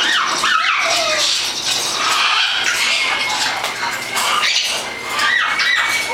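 Young Amazon parrots squawking and chattering, with sharp rising and falling squawks about a second in and again near the end.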